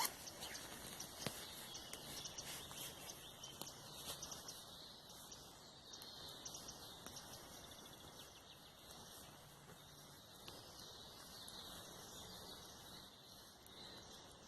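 Faint forest ambience: small birds chirping and calling over a soft steady hiss, with a single sharp click about a second in.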